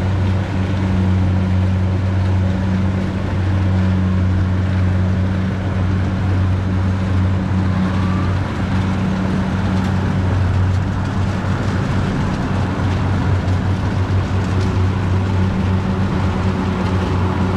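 Kubota DC70 rice combine harvester's diesel engine running steadily under load as it cuts rice, a constant low drone.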